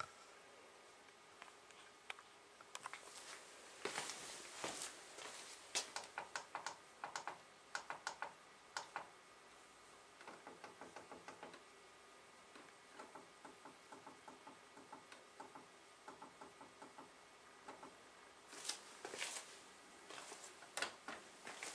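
Buttons on a Samsung Ecobubble WF1804WPU washing machine's control panel pressed over and over while the cycle settings are changed, each press a short, sharp click or blip. In the middle comes an even run of presses, about two or three a second.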